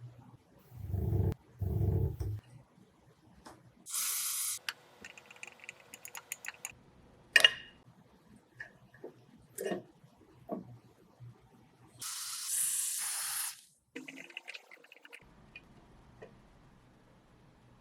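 Two short hissing sprays, the second lasting over a second, amid scattered small clicks and taps of handling a small metal object, with two low dull thuds near the start.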